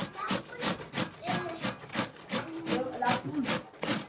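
Raw beetroot being grated on a stainless steel box grater: rasping strokes in a steady rhythm, about three a second.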